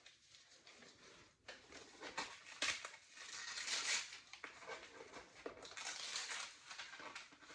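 Parcel packaging being handled, crinkled and torn open by hand, in irregular rustling bursts that begin about a second and a half in.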